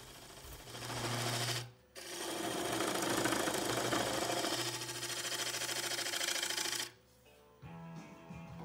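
Carbide turning tool cutting into a spinning mahogany bowl blank on a wood lathe: a steady rough cutting noise that breaks off briefly just before two seconds in, then runs on until it stops abruptly near the end. Music starts just after.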